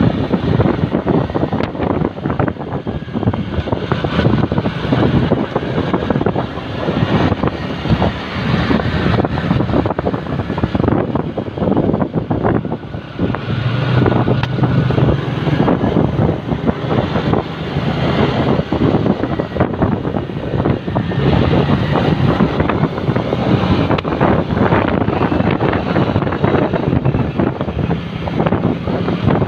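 Wind buffeting the microphone of a camera mounted on a moving motorcycle, mixed with the bike's engine and tyre noise. A steadier low engine hum stands out for a few seconds midway.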